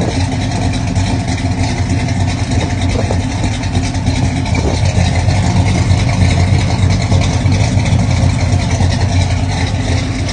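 1966 Chevrolet Chevelle engine idling steadily, heard close to the exhaust at the rear of the car.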